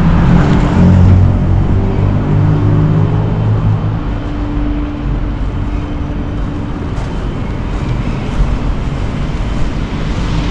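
Steady low rumble of a vehicle engine running nearby, its hum fading after about five seconds.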